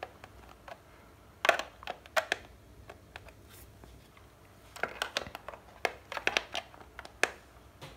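Clicks and light knocks of a metal tool and hands working on a plastic hoverboard shell while the power button's nut is tightened. A few come about one and a half to two seconds in, and a quicker run of clicks follows from about five to seven seconds in.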